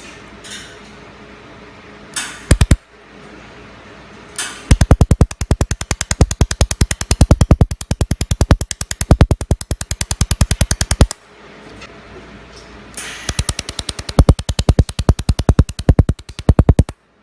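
Handheld laser welding machine on stainless steel firing a fast, even series of sharp pops, about ten a second. There is a brief burst a couple of seconds in, then two runs of several seconds each with a pause between.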